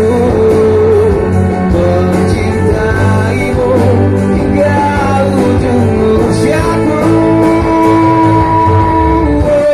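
Live band playing a pop ballad: acoustic guitar strumming with bass guitar and drums, under long held melody notes.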